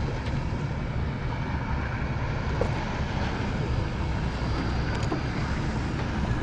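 A boat's engines running steadily, a low even drone with water and air noise over it.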